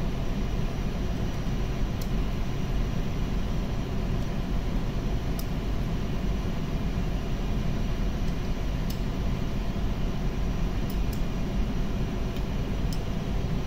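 Steady, loud machinery drone without pitch changes, with a few faint clinks of hand tools against metal pump parts.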